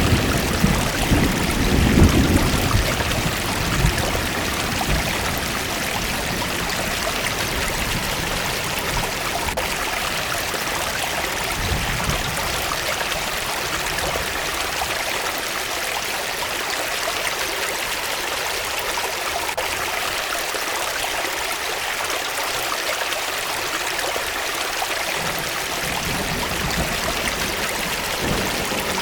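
Forest waterfall: water rushing and splashing in a steady, even hiss. A low rumble underneath fades out after about three seconds.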